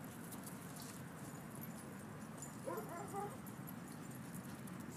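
A dog gives a few short, high yips about three seconds in, over a steady low background rumble.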